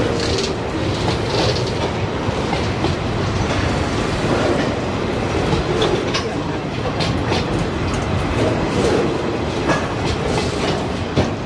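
Container wagons of a freight train rolling past on steel wheels: a steady running noise with irregular sharp clicks as the wheels pass over rail joints.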